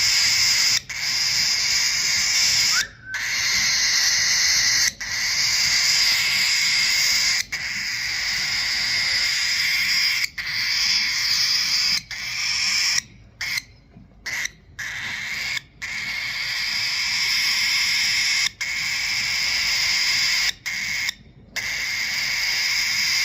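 Baby cockatiel making harsh, hissing begging calls after handfeeding. The calls are long, one after another with short breaks, and there are a few brief pauses about two-thirds of the way through.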